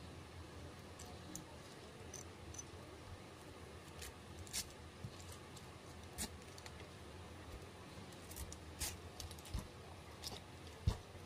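Kitchen knife cutting through pineapple skin and flesh: faint, scattered crisp cuts and scrapes, with a low knock near the end.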